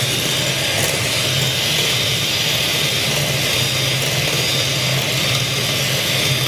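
Electric hand mixer running steadily, its beaters whisking egg batter for a Swiss roll sponge. The batter is still runny and not yet thick enough for a drop to fall slowly.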